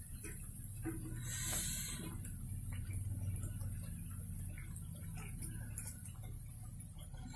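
Papdi deep-frying in hot oil in a kadhai: a soft sizzle with scattered small crackles, and light taps and scrapes of a perforated metal frying ladle (jhara) turning them. The sizzle swells briefly about a second and a half in, over a low steady hum.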